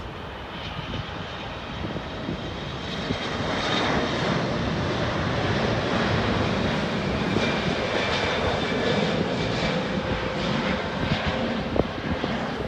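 Airliner engines running loud, the noise building over the first few seconds and then holding steady, with a faint high whine above the rumble.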